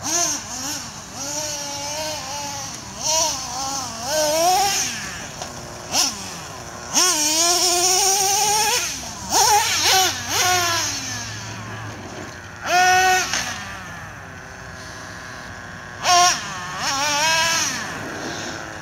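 Traxxas Revo 3.3 nitro RC monster truck's small two-stroke glow engine revving in repeated bursts, its high whine rising and falling as the throttle is opened and eased off.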